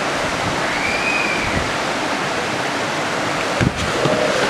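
Steady rushing noise with no pitch to it, like water or wind, with a single sharp knock about three and a half seconds in.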